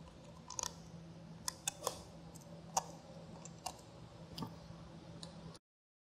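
About eight sharp, irregularly spaced clicks and ticks as a plastic casing block is fitted onto a HIBLOW HP-80 linear diaphragm pump and a screwdriver starts its screws, over a faint steady low hum. The sound cuts off suddenly near the end.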